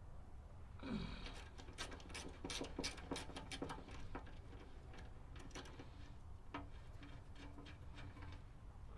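Metal tools and loose bolts clicking and clinking in a dense irregular run for a few seconds as bolts come out of the grinder's steel wheel cover, with a brief falling squeak near the start and a few scattered clicks afterwards.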